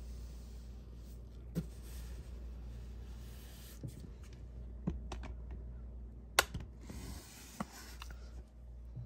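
Angled paintbrush stroking paint onto a textured wall, a soft brushing hiss, with a few scattered light clicks and taps.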